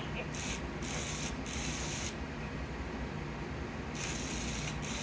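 Furby animatronic's small motor and cam gears whirring and clicking as its ears and eyes move. The sound comes in short runs for about the first two seconds, eases off, and starts again about four seconds in.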